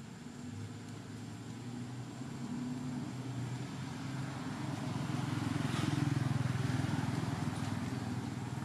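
A motor vehicle's engine humming as it passes, growing louder to a peak about two-thirds of the way through and then starting to fade.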